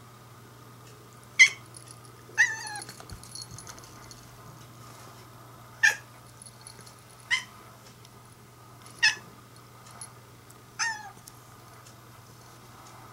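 Domestic cat crying out in six short meows spread over several seconds, several with a falling pitch. The cat is calling at a moth flying where it cannot reach it.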